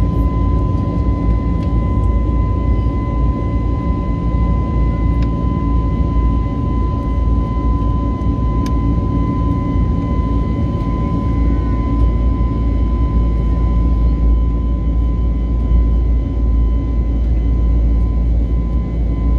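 Airliner engine noise heard inside the cabin during the climb after takeoff: a steady low rumble with a constant high-pitched whine over it.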